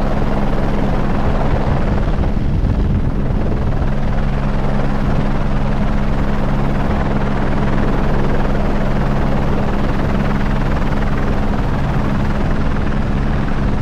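Airbus H125 helicopter in flight, heard close from on board: steady rotor and turbine noise, an even rush with a constant low hum of several fixed tones.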